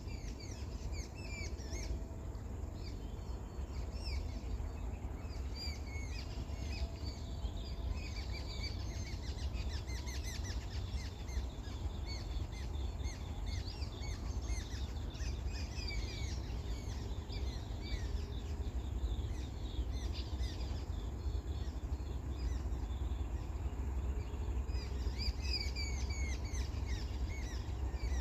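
Small birds chirping in many quick, repeated short calls, over a steady low rumble.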